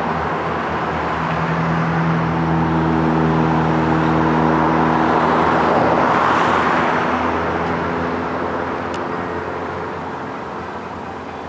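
A road vehicle going by, its noise swelling to a peak about halfway through and then fading, over a steady low hum.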